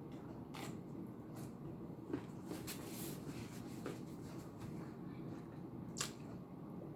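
Eating sounds: a person eating Chinese takeout, with a few scattered sharp clicks and smacks of mouth, utensils and container over a steady low room hum.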